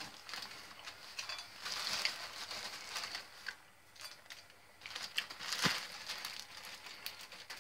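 Close crunching and chewing of a piece of dried, woody Chinese herb root, in irregular patches with a sharp crack a little over halfway through.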